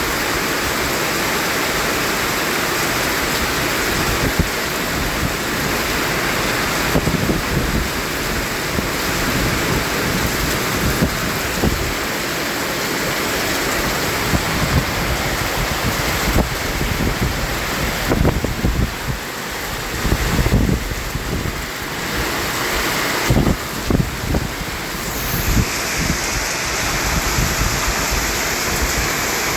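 Steady white-noise hiss for sleep, with irregular low rumbles and thumps breaking through it from about four seconds in until near the end.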